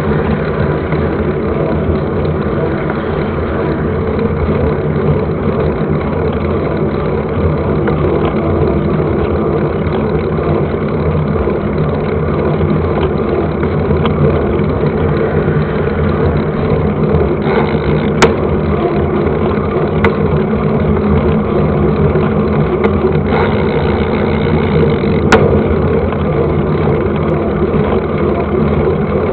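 Steady noise of a mountain bike being ridden on a trail, heard through a camera carried on the bike or rider: wind and trail rattle. Two sharp clicks in the second half, about seven seconds apart.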